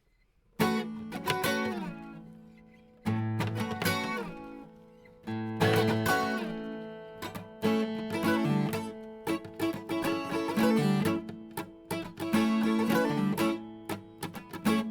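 Guitar music: strummed chords starting about half a second in, the first few left to ring out and fade, then a busier strumming and picking pattern.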